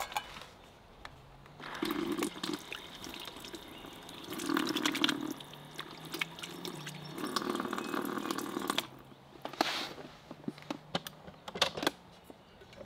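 Water from a battery-powered Dometic GO electric faucet running over hands being washed and splashing into a camp sink, the sound changing as the hands move in and out of the stream. Near the end the flow stops and scattered drips fall into the sink.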